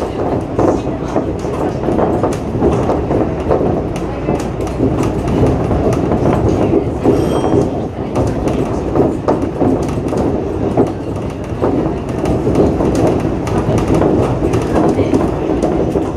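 Shonan Monorail 5000 series suspended monorail car running at speed, heard from inside the front cab: a steady, rough running noise with irregular clicks and rattles.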